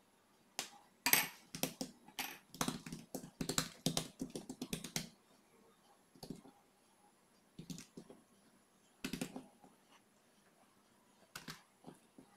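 Quick clicks and taps of a metal spoon against a glass bowl and over thin oiled dough as a melted butter, oil and semolina mixture is spread on it. After about five seconds they thin to a few short clusters of soft pats as hands fold the greased dough.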